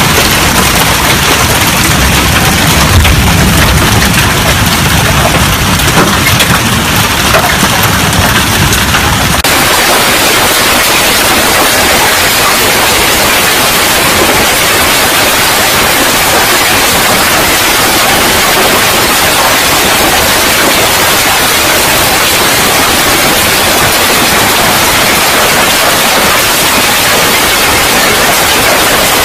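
Heavy hail falling, a dense, steady clatter of hailstones, with a deep rumble under it for the first nine seconds or so. It changes abruptly to an even hiss of hail on ground and roof tiles about nine seconds in.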